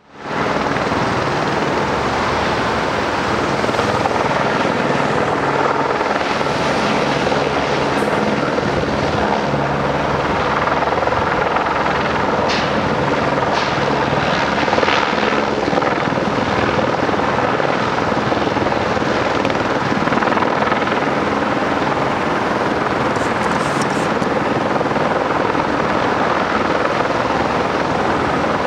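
Helicopter flying overhead on a load-lifting job: a steady rotor noise with a low, even hum beneath it.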